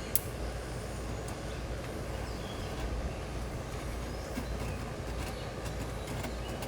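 Dryer-vent cleaning rods and brush working inside a dryer vent duct: a steady rumbling and scraping, with a sharp click just after the start.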